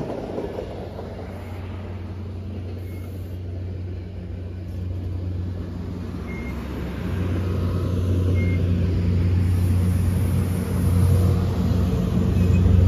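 MBTA commuter rail passenger train rolling slowly past, with a steady low engine hum that grows louder about halfway through and again near the end.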